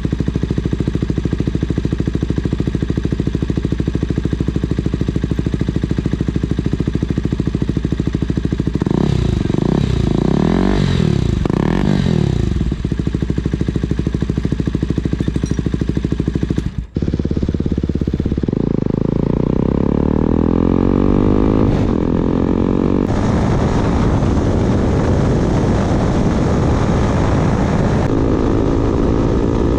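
KTM Duke 200's single-cylinder engine running through an aftermarket Akrapovic exhaust. It idles steadily, is revved a few times about nine seconds in, and after a sudden break it climbs in pitch through the revs as it accelerates.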